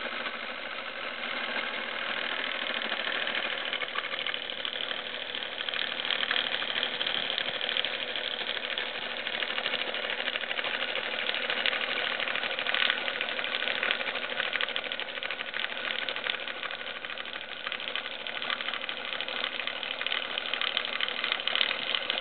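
Indexable carbide-insert milling cutter on a Stanko milling machine cutting Hardox 450 hard wear-resistant steel at 560 rpm: a steady rough cutting noise with a constant hum under it and a dense rapid ticking of the inserts biting the steel.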